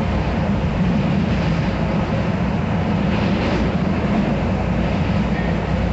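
Miami-Dade Metrorail train in motion, heard from inside the car: a steady, even running noise with a strong low hum.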